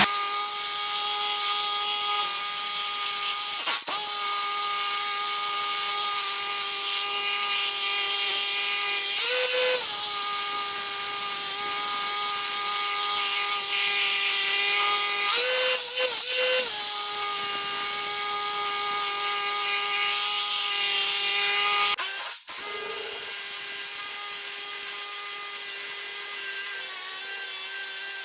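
Electric power drill drilling into concrete, its motor running steadily with a few short rises in pitch and cutting out briefly twice.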